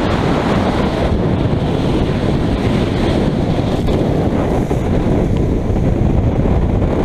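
Gale-force wind buffeting the microphone, loud and steady, over the rush of waves and spray against a small motorboat's hull in rough seas.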